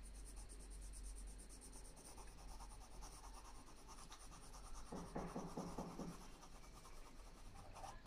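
Pencil graphite scratching on paper in faint back-and-forth shading strokes, with a louder run of quick strokes about five to six seconds in.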